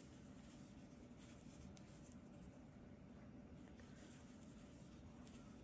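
Near silence: faint scratchy rustle of yarn being drawn through with a crochet hook, with a few soft ticks, over a low steady room hum.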